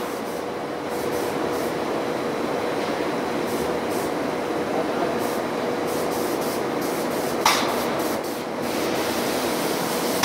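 Spray gun hissing steadily as a second coat of paint is sprayed on, over a faint steady hum. One short sharp click comes about seven and a half seconds in.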